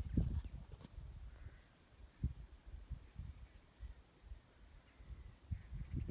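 Insects chirping in an even rhythm, about three to four high chirps a second, over wind buffeting the microphone in low, uneven gusts.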